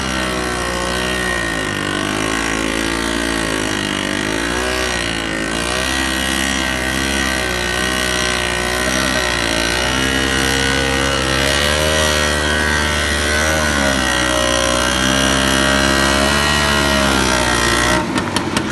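Bajaj Chetak scooter's two-stroke single-cylinder engine running hard in a homemade mini tractor, its pitch rising and falling repeatedly as it works under load pulling a loaded auto-rickshaw through mud. Near the end the engine sound gives way abruptly to a rapid crackle.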